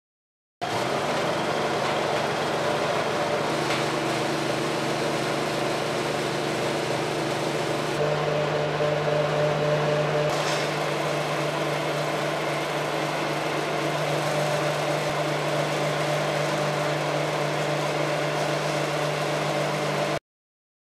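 Small pellet mill running steadily with a low machine hum while oily sawdust is fed in slowly and pressed into pellets through the die. The hum starts suddenly less than a second in and cuts off abruptly just before the end.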